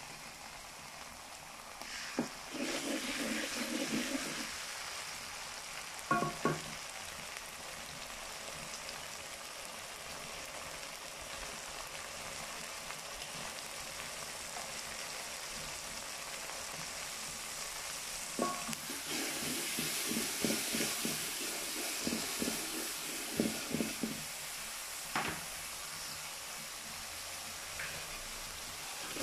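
Sliced onions and green chillies sizzling steadily in oil in a black iron karahi. A wooden spatula stirs and scrapes against the pan about two seconds in and again for several seconds past the middle, with a few sharp knocks.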